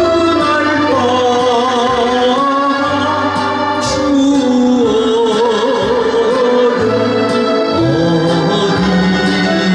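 A man singing a Korean song with vibrato into a handheld microphone over a karaoke backing track with bass and light percussion. His voice is, by his own account, in poor shape and short of breath.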